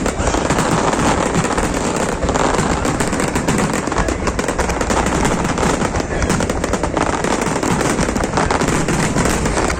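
Fireworks heard from close by: a dense, unbroken stream of rapid crackling and popping as many shells burst at once.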